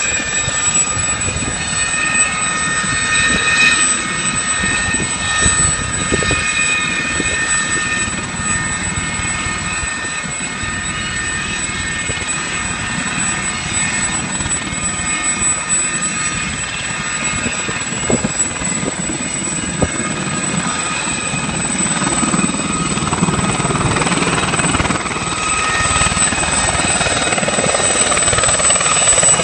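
Aérospatiale SA 341 Gazelle helicopters running, a steady high turbine whine over rotor noise. Over the last several seconds the rotor noise grows louder as one hovers close by.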